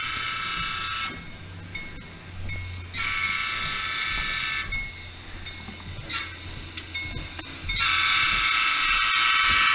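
HO-scale model diesel locomotive's electronic horn, heard through a small speaker, sounding three long steady blasts for a grade crossing: one ending about a second in, one a few seconds later, and a third starting near the end, over a faint low engine hum.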